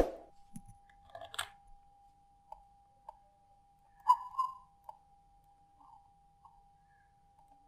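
Computer mouse clicks and small desk knocks while the chart is dragged and scrolled. The loudest come right at the start and about four seconds in, over a faint steady tone.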